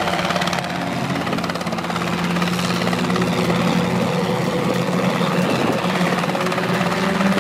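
Small two-bladed training helicopter hovering just above the ramp, heard from outside, its rotor and engine running steadily.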